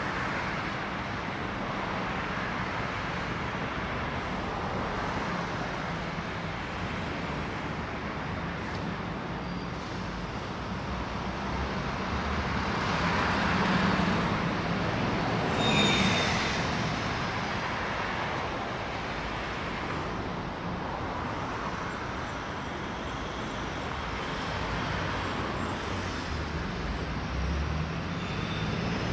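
Steady road traffic on a multi-lane city avenue: a continuous hiss of tyres and engines. It swells about halfway through as vehicles pass close, with a brief high squeal at the loudest point.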